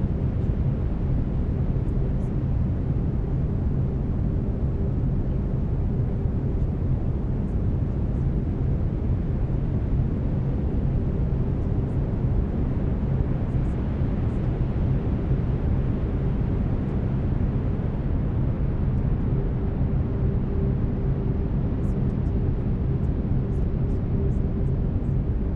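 Steady brown noise, a deep even rumble with no changes, with faint steady tones of binaural beats underneath.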